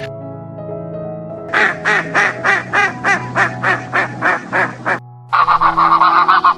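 Duck quacking in fast runs, about six quacks a second, starting about a second and a half in and stopping near the middle, then a second run after a short pause, over background music with held notes.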